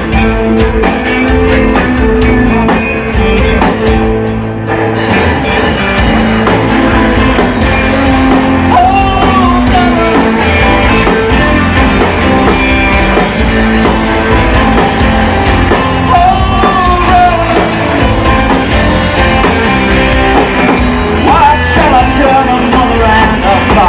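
Live rock band playing loudly: electric guitars, bass, piano and drums, with a male singer's voice coming through in parts. The music briefly thins out about four seconds in.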